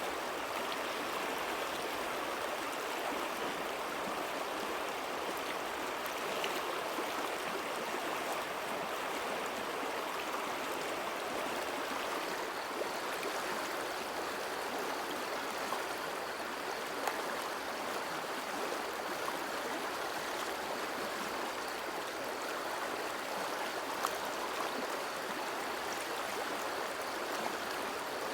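Water flowing steadily, a continuous even rush with a couple of faint ticks.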